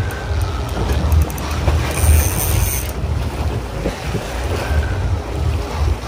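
Wind buffeting the microphone on a small boat at sea, a pulsing low rumble over the wash of the water. About two seconds in there is a brief high-pitched whine lasting under a second.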